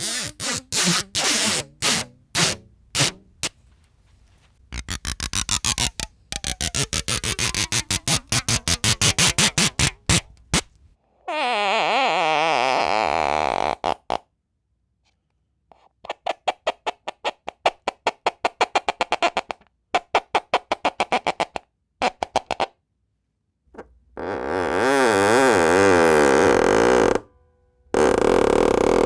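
Quarter-inch tape drawn between fingers, its stick-slip friction making a series of door-like creaks: some come as fast trains of clicks, others as longer pitched creaks whose pitch wavers, with short silences between them.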